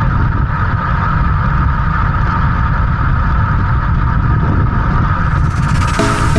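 Strong wind buffeting the microphone of a moving road bike: a steady, loud low rumble. Music comes in near the end.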